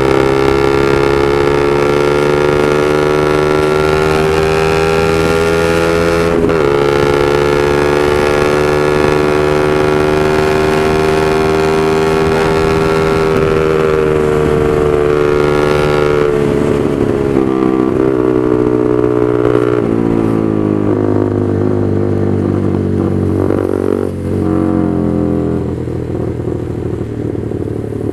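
Honda CB150R's single-cylinder engine through a Proliner aftermarket exhaust, loud while ridden: it holds steady high revs with a brief dip about six seconds in, then from about halfway the revs fall and rise unevenly as the bike slows.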